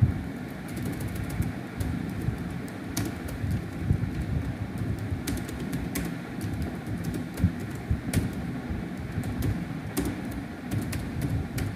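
Computer keyboard keys clicking irregularly as text is typed, a few keystrokes a second, over steady low background noise.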